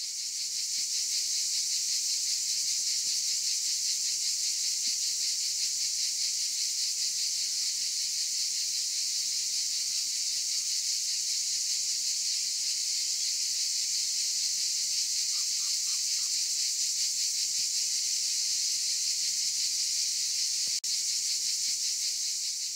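A chorus of cicadas: a steady, high buzz with a fast pulsing texture. A few short faint chirps come through about fifteen seconds in.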